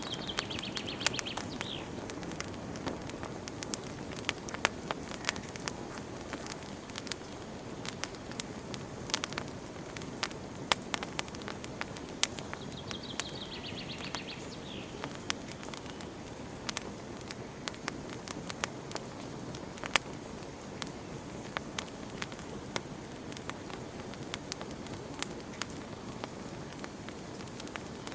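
Campfire burning: wood crackling and popping in irregular sharp snaps over a steady low rush of the flames. A short high chirping call sounds twice, about a second in and again about 13 seconds in.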